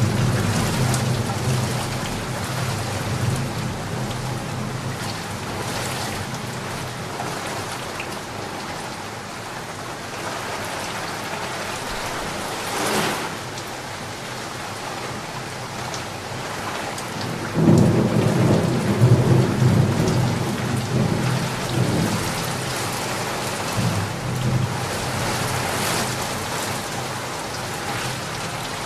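Steady heavy rain falling on a flooded street, with low rumbling near the start and again about two-thirds of the way through.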